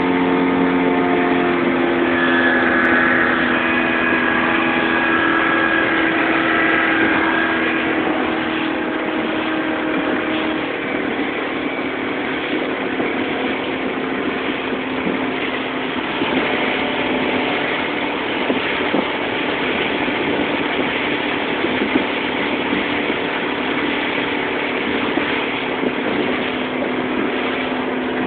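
Yamaha 150 outboard motor running the boat at speed, over a steady rush of water and wind. The engine's steady tones stand out for the first ten seconds or so, then the sound dips slightly and the rush of water and wind dominates.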